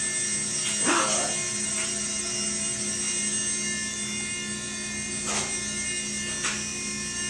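Blade MSR micro RC helicopter whining steadily as its small electric motors spin the rotors in hover. A dog gives a short bark about a second in, and there are a couple of faint clicks later.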